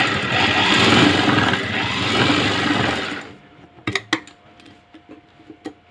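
Sewing machine running, stitching down a blouse's neckline binding, then stopping about three seconds in; a few light clicks and knocks follow.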